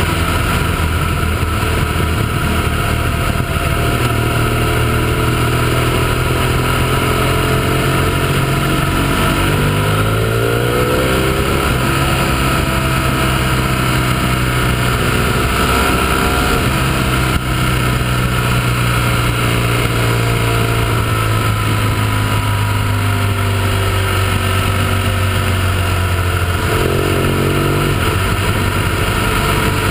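Motorcycle engine running on the road at riding speed. Its note holds steady, then climbs under acceleration about ten seconds in and again near the end, over a steady rush of wind noise.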